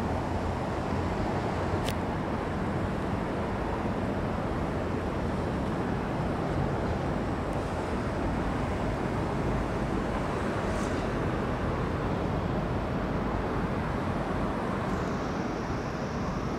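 Steady rumble and rush of a moving river boat, engine and water noise together, with no breaks.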